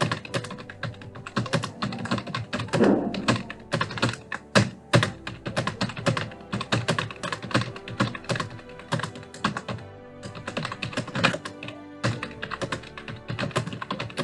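Fast touch-typing on a Prodot computer keyboard: a rapid, uneven stream of key clicks with a brief lull about ten seconds in. Background music runs faintly underneath.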